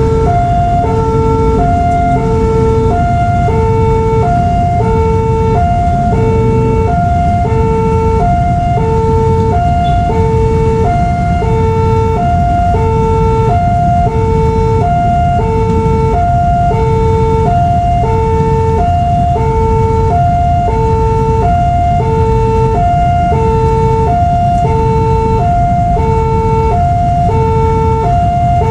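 Railway level-crossing warning alarm from a horn loudspeaker at the crossing: an electronic two-tone alternating low and high, about one cycle every 1.3 seconds, sounding continuously while the crossing signal is active. A steady low rumble runs underneath.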